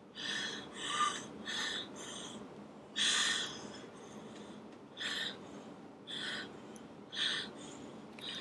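A series of short noisy breaths, about one a second at first, with a longer one about three seconds in, then spreading out.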